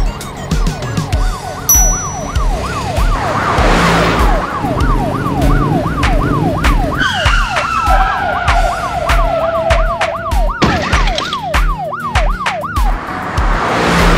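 Cartoon police-car siren sound effect, a fast rising-and-falling yelp about three cycles a second that stops shortly before the end, over background music with a steady thumping beat. A whoosh sweeps through twice.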